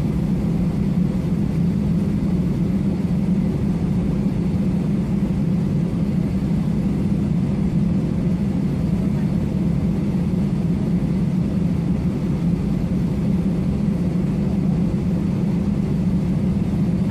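Steady low drone inside an airliner cabin as it taxis, the jet engines running at idle with a constant hum and rushing noise.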